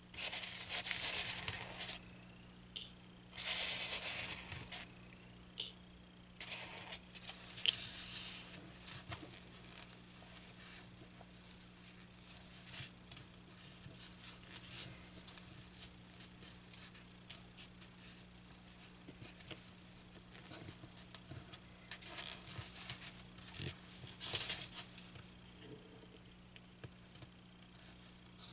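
Fabric rustling and being handled in irregular bursts, with light clicks and scrapes of small items such as pins, as cloth is worked over a styrofoam board; a faint steady hum sits underneath.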